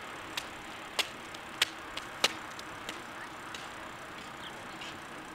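A runner's footsteps striking a rubberized track at about three steps a second, every other step louder, growing to a peak a little over two seconds in and then fading as she passes, over a steady outdoor hiss.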